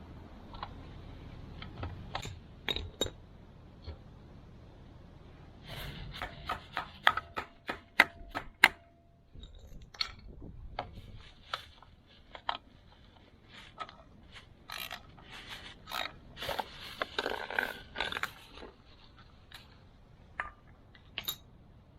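Hand tools clicking and knocking against metal while working at a stuck oil filter. There is a quick run of sharp knocks about six to nine seconds in and another busy cluster of clicks around fifteen to eighteen seconds.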